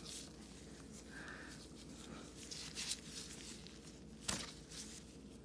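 Faint handling sounds of a gloved hand working a piping bag of royal icing over a cookie on parchment paper, with one sharp light tap about four seconds in.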